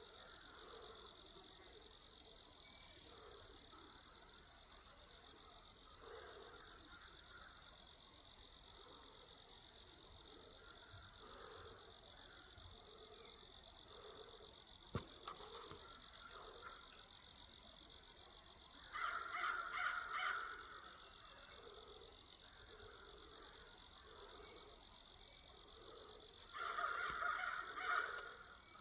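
Crows cawing in two short series, about two-thirds of the way in and again near the end, with fainter calls between, over a steady high drone of insects.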